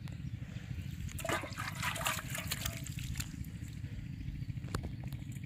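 A caught carp splashing in a metal pot of water, a cluster of splashes for about two seconds beginning just over a second in, then a few small isolated splashes and drips.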